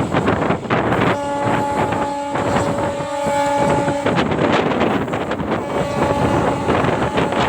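Electric locomotive's air horn sounding one steady blast of about three seconds, then a second, fainter blast near the end, over the rush of wind and the clatter of ICF coach wheels on the rail joints.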